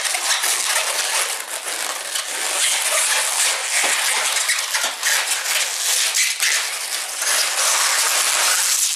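A thin 160 latex modelling balloon being twisted into a series of small sections, with continuous rubbing and squeaking of the rubber against itself and the hands.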